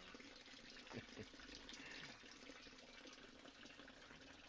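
Near silence: a faint steady hiss of running water, with two soft clicks about a second in.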